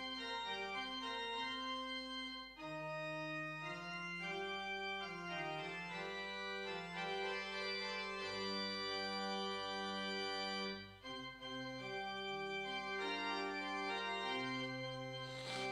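Church organ playing a slow hymn tune in held chords, with deep pedal bass notes coming in under the harmony partway through and again near the end. There is a short break between phrases about eleven seconds in.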